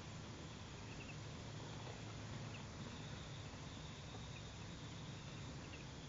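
Faint outdoor ambience: a steady high insect trill with a few short, high chirps now and then, over a low steady rumble.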